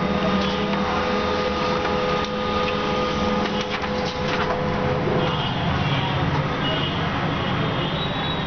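A machine running with a steady hum and several held tones, with a few clicks around the middle; about five seconds in, the held tones stop and the hum changes to a different, higher pattern.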